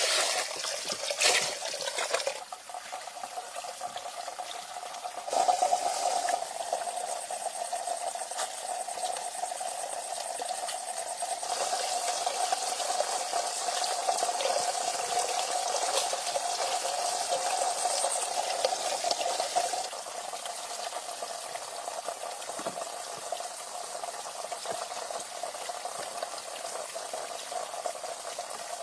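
Steady sound of water, louder from about five seconds in and easing off again near twenty seconds.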